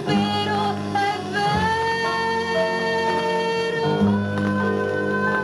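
Pop song with a singer holding long notes over a steady bass, played from a 7-inch vinyl single on a 1963 Fidelity UA7 record player through its speaker boxes.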